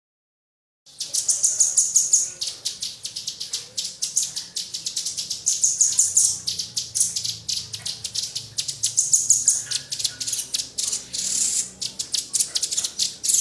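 Small songbird chattering in rapid, sharp high-pitched chips, many a second, starting abruptly about a second in.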